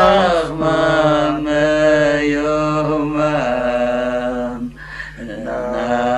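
A man's voice chanting a slow melody in long held notes, with a short break about five seconds in.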